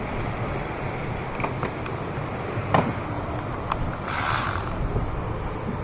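Scattered clicks and knocks of engine-bay parts being handled and fitted during reassembly of the intake. There is a short hissing rustle about four seconds in, over a steady low background rumble.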